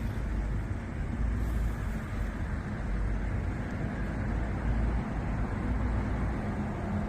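Steady wind rumble on the microphone and road noise from a bicycle riding on the road at speed.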